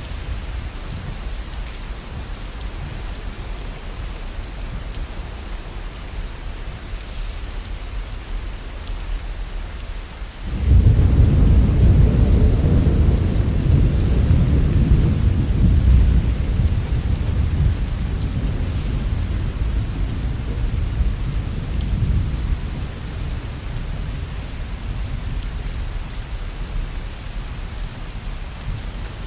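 Steady heavy rain, joined about ten seconds in by a sudden deep thunder rumble that stays loud for several seconds, then slowly dies away under the rain.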